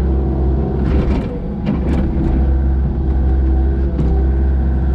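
Kobelco SK55SRX-6E mini excavator's diesel engine running steadily under hydraulic load while digging, with a few short knocks and clanks over the drone.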